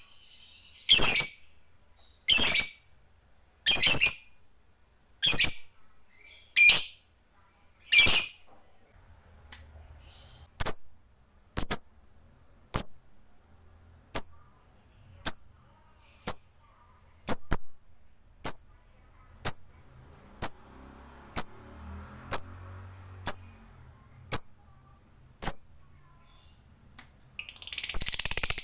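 Caged lovebird giving short, sharp, high chirps over and over, about one every second and a half at first, then about one a second. Near the end it breaks into a continuous rapid chattering trill, the long 'ngekek' call.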